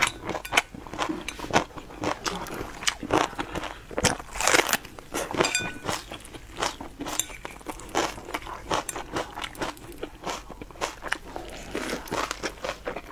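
Close-up eating sounds: wet chewing and lip-smacking clicks as soft filled rolls are chewed, irregular and continuous, with one longer, louder stretch about four seconds in.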